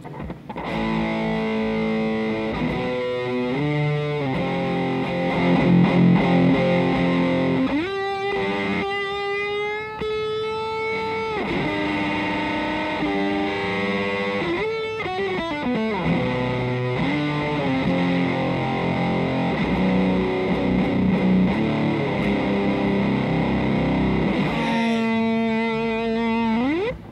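Electric guitar played through an EarthQuaker Devices Life pedal, an analog monophonic sub-octave feeding a distortion: heavy, gnarly distorted chords and sustained notes. Several notes slide in pitch, one up about 8 seconds in, one down about halfway, and one up near the end, where it is held.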